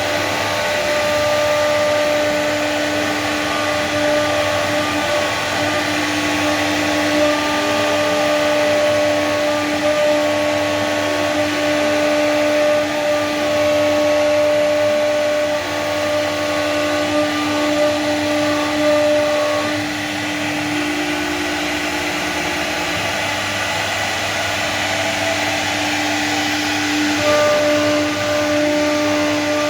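CNC router's spindle motor running at speed with a steady high whine over a hiss as it carves into PVC board. The whine's overtones shift for a few seconds about two-thirds of the way through.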